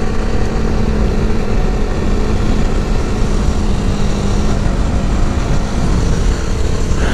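Motorcycle engine running at a steady cruising pitch, under a loud, constant rush of wind on the microphone.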